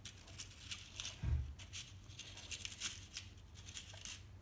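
Faint scattered clicks and taps of a clear plastic compartment box of small steel fishing hooks being handled and snapped open, with the hooks rattling lightly in it. A soft thump about a second in.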